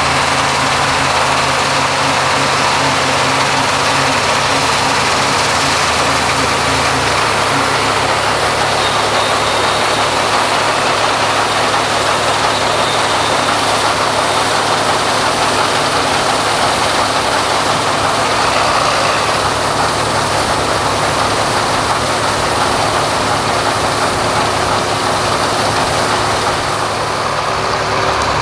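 New Holland CX880 combine harvester running while harvesting wheat: a steady engine with a dense, even rushing noise over it. The deepest engine tone changes about seven seconds in.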